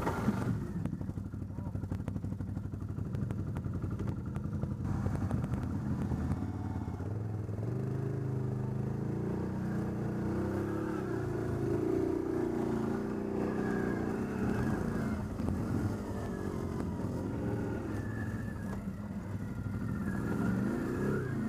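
ATV engine running, its revs rising and falling unevenly.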